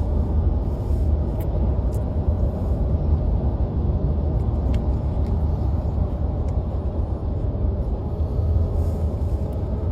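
Steady low rumble of vehicle road noise, even in level throughout.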